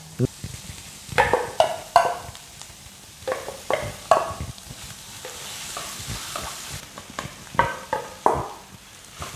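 Wooden spatula scraping thick cheese sauce from a steel bowl and stirring it into a frying pan of sausage and bell peppers, in short bursts of scraping strokes. The pan sizzles underneath, the hiss swelling in the middle between the strokes.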